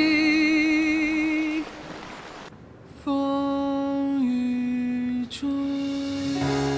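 A slow ballad with a sung voice over soft accompaniment. A held note with vibrato fades about a second and a half in, there is a brief lull, and a new phrase of long held notes begins about three seconds in.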